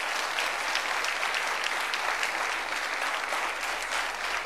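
Studio audience applauding steadily, a dense clapping from many hands.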